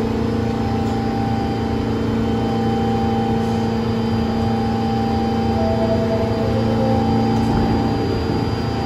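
R46 subway train standing in the station with its doors open, its onboard equipment humming steadily with several unchanging tones.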